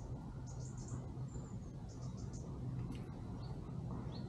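Lakeside outdoor ambience: a steady low hum with faint, high-pitched chirps coming in quick little clusters every second or so.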